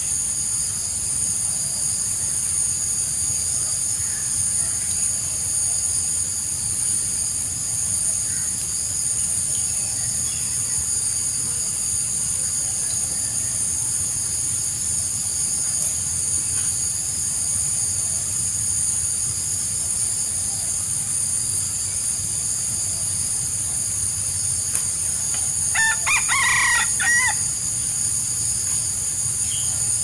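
A rooster crows once near the end, over a steady high-pitched hiss.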